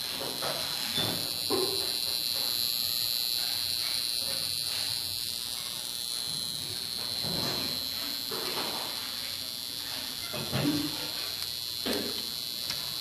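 Challenger mini stereo system giving off a strange steady high-pitched whine over a hiss.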